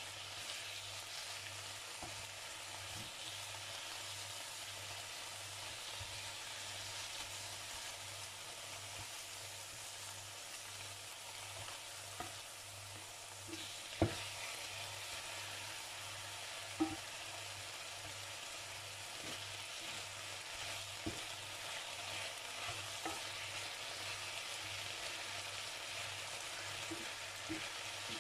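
Chicken strips sizzling in oil in a stainless steel frying pan, stirred and turned with a wooden spatula. A few sharp knocks of the spatula on the pan, the loudest about fourteen seconds in.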